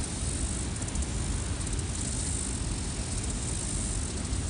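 Steady low rumbling outdoor noise, like wind on the microphone or moving water, with faint pulsing insect chirps high above it that come and go.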